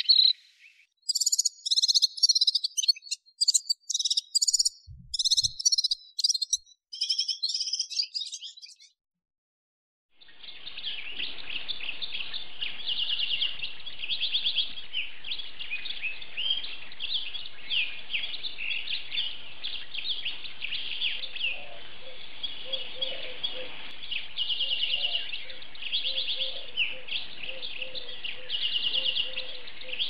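Red-fronted serin singing: high, fast twittering phrases over the first eight seconds or so. After about a second of silence, a Syrian serin sings a continuous, lower jingling song of rapid trills over a faint steady background hiss.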